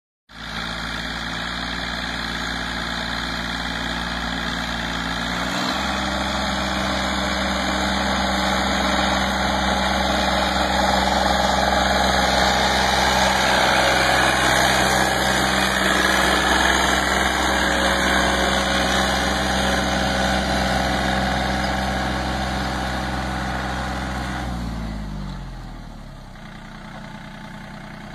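A John Deere mini tractor's diesel engine runs steadily under load while pulling a rotary tiller through dry soil, with a churning noise over the engine note. About five seconds in the engine speeds up a step; it is loudest midway, then near the end the engine slows and drops in pitch as it throttles down.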